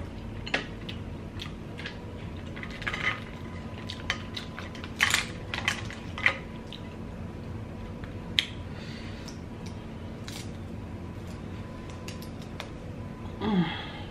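Boiled Dungeness crab leg shells being cracked and picked apart by hand: irregular sharp cracks and clicks, the loudest in a cluster about five to six seconds in. A short gliding sound comes near the end.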